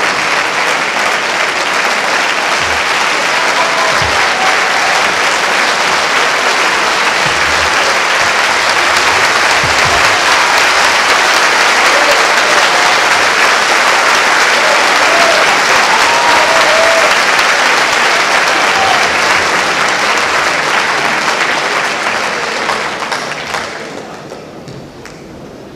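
Concert-hall audience applauding steadily after a piano concerto, dying away near the end.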